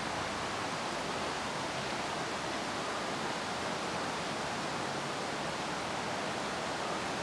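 Small creek, normally dry and flowing after days of rain, making a steady sound of running water.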